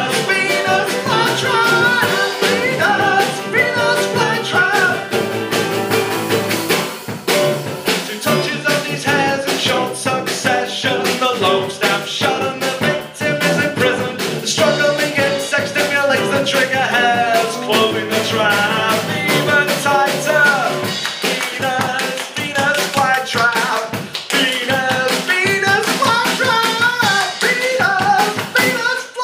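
Live band playing a song with a singing voice over guitar and a busy percussive beat.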